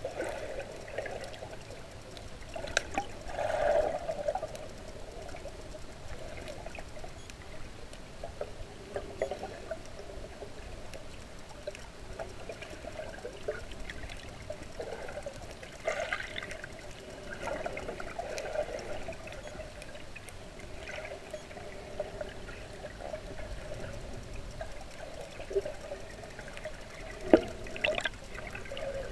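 Underwater water noise heard through a camera's waterproof housing: a steady muffled wash with scattered small clicks and a few brief louder knocks.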